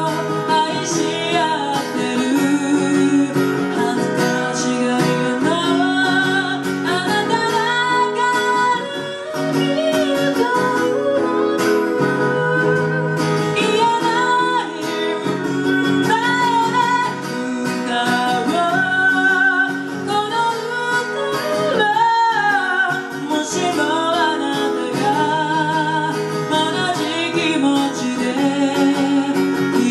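A woman singing into a handheld microphone, her held notes wavering with vibrato, accompanied by an acoustic guitar.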